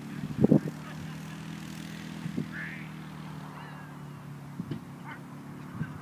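An engine hums steadily at a constant pitch. A few short, sharp sounds cut over it, the loudest about half a second in.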